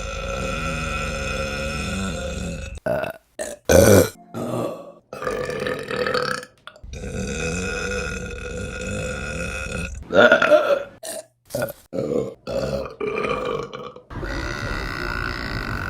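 A series of women's burps, cut one after another: several long drawn-out burps of up to about three seconds each, with short quick burps between them.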